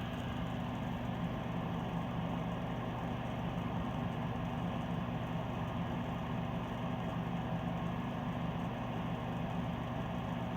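Coleman DGAT075BDC mobile home gas furnace running with a steady electric motor hum and no burner flame: it has failed to ignite and is waiting to recycle, a fault put down to a bad ignition module.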